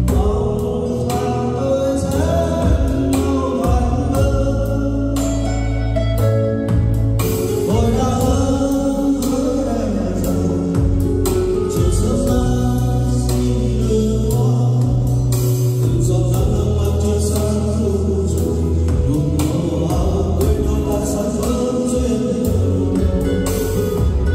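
A song with singing over a heavy, steady bass line, played loudly.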